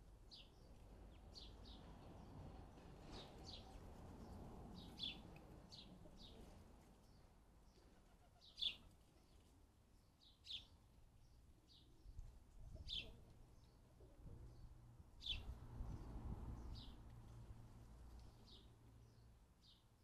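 House sparrows chirping: faint, short single chirps repeated at irregular intervals, a few of them louder, over a faint low rumble.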